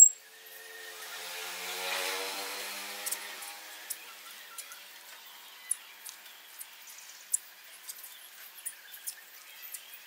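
A motor-like hum swells and fades over the first few seconds, with a scatter of short, sharp high clicks and chirps running through the rest.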